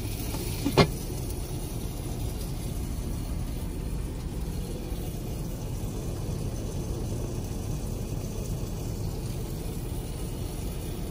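Freightliner Cascadia's diesel engine idling: a steady low rumble heard inside the cab. There is one short knock about a second in.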